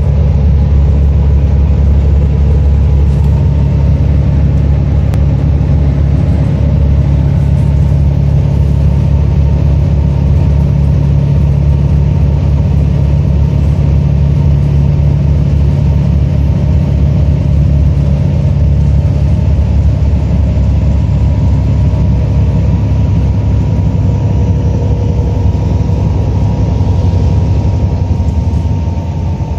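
Steady road noise of a moving vehicle heard from inside the cabin: a continuous low engine and tyre rumble at motorway speed.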